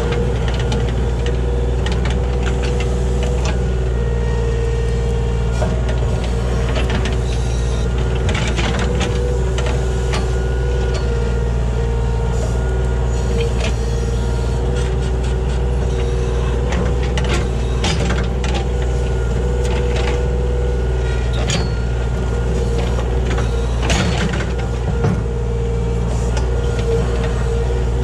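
Kubota KH-60 mini excavator's diesel engine running steadily under work, with scattered knocks and scrapes as the bucket digs dirt and wood around a large stump. One louder knock comes near the end.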